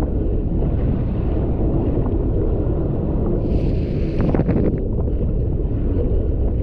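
Heavy wind buffeting the microphone over the rush of water as a Sea-Doo personal watercraft rides through choppy storm waves. About halfway through there is a brief burst of hissing spray with a few sharp slaps of water.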